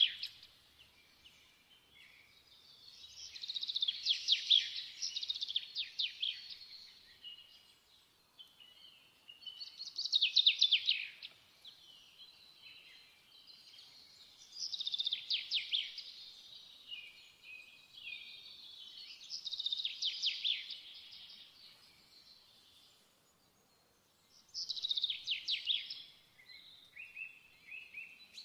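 A songbird singing: a phrase of quick, high trills every five seconds or so, each lasting one to three seconds.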